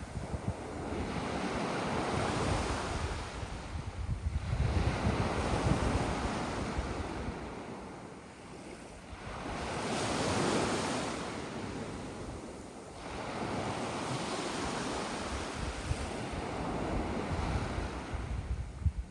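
Sea waves washing onto a sand and small-pebble beach, a steady rush that swells and eases every few seconds as each wave comes in and draws back.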